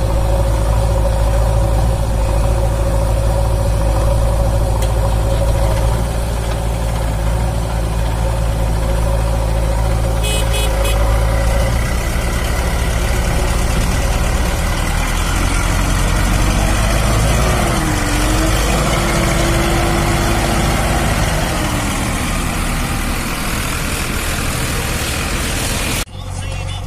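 Diesel engines of a Preet 6049 DI tractor and a JCB 3DX backhoe loader running steadily together as the tractor hauls a loaded trolley through mud, a heavy low rumble. The sound drops and changes abruptly near the end.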